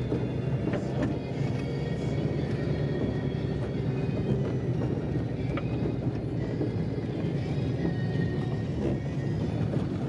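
A car's engine and tyres running steadily on a road, heard from inside the cabin, with a few faint ticks.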